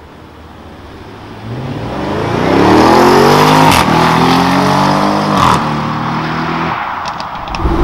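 Audi RS6 Avant's twin-turbo V8 accelerating hard from low speed, its note climbing. It drops in pitch at an upshift about halfway through and again with a short crack a little later, then fades as the car pulls away.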